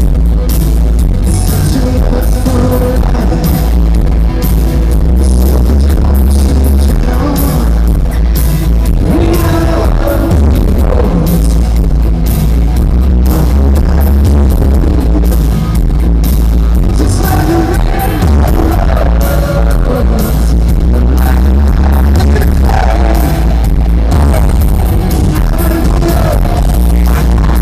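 Live rock band playing loud through a concert PA, with a male lead singer singing over drums, electric guitars and heavy bass. Bass-heavy audience recording, the low end dominating.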